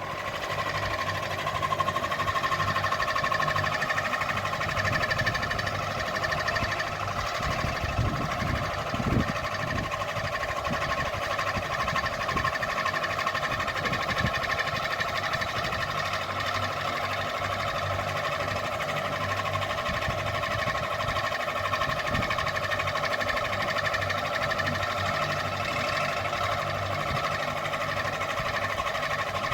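Ceiling fan running at a steady speed: a constant whirring hum with several steady tones over a low rumble.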